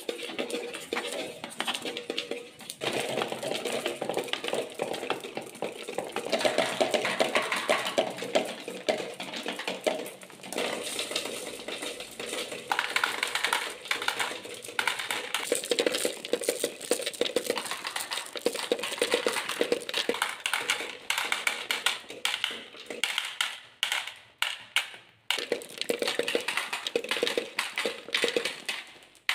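Many marbles rolling and clattering down marble-run ramps, clicking against the baffles and against each other, and dropping into a toy truck's plastic bin. The dense rattle thins out near the end into separate clicks.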